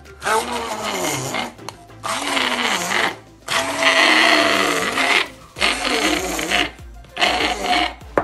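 Handheld immersion blender whirring in a stainless steel cup in about five short bursts of a second or so each, blending ice cream with milk into a milkshake.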